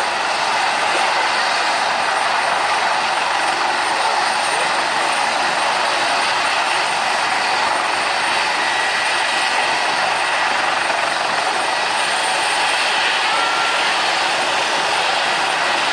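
Embraer Legacy business jet's two rear-mounted Rolls-Royce AE 3007 turbofans running at taxi power as it rolls past: a steady rushing jet noise with a thin high whine.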